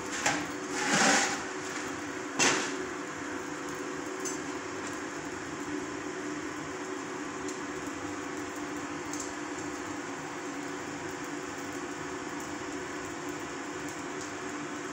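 Forge air blower running steadily with a hum under the coal fire. A few metal knocks in the first seconds, the sharpest about two and a half seconds in.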